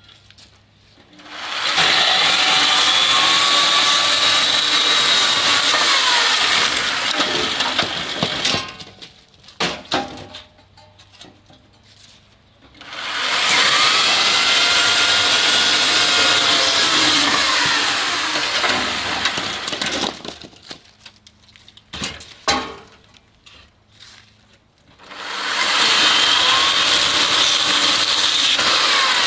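A power saw cutting firewood three times. Each cut swells up, runs loud and steady for five to seven seconds, then dies away, with the pitch bending as the blade meets the wood. Wooden knocks fall in the gaps between cuts.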